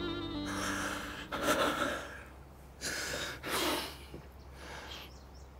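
Heavy breaths and sighs from a person, three short exhalations in the space of about two and a half seconds. A bowed-string score fades out in the first half second.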